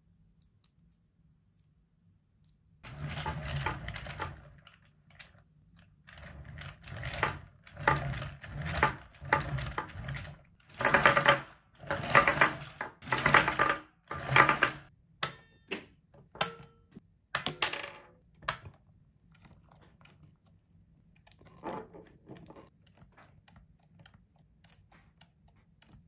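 Hard plastic toy parts of a Spider-Man Crawl 'N Blast Spider toy being moved and handled, clattering in a string of short bursts, then a few sharp clicks.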